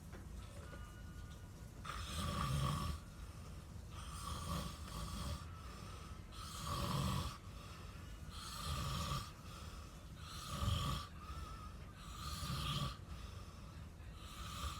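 A person snoring in regular breaths, about one snore every two seconds.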